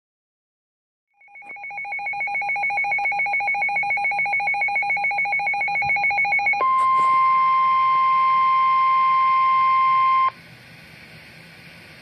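Weather radio alert: about a second in, a rapidly pulsing two-pitch electronic beeping starts. Midway it switches to one steady tone, the NOAA Weather Radio 1050 Hz warning alarm tone, which cuts off suddenly near the end and leaves faint radio hiss.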